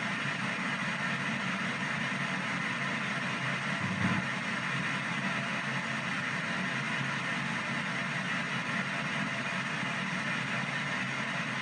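PSB7 ghost box sweeping the radio band in reverse: a steady hiss of static chopped rapidly as it jumps from station to station, with a brief louder fragment about four seconds in.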